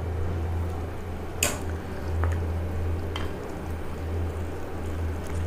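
A spoon stirring chicken curry gravy in a pot, wet and squelching, with a few clinks against the pot; the loudest clink comes about a second and a half in. A steady low hum runs underneath.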